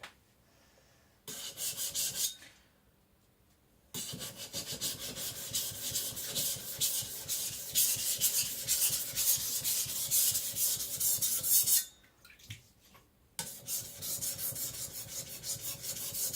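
Steel cleaver blade scraped back and forth in rapid strokes across a coarse Naniwa Professional 400 whetstone, thinning the blade by grinding metal off. It comes in runs: a short one about a second in, a long stretch from about four seconds, and another after a brief pause near the end.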